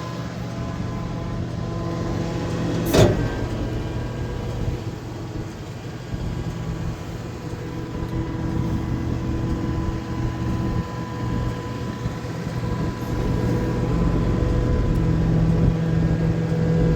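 A vehicle's engine running steadily, with a single sharp knock about three seconds in.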